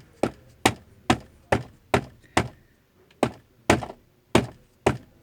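Hard plastic glove box lid of a Datsun redi-GO being knocked by hand, about two sharp knocks a second with a brief pause midway, testing that the lid, now packed with tape, no longer rattles.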